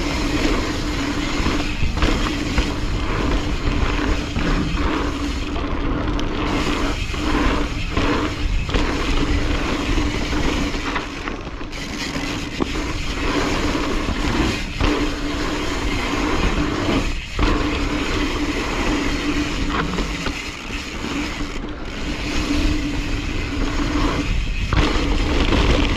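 Mountain bike riding fast down a dirt jump trail: tyres rolling over dirt, with wind rushing over the camera's microphone.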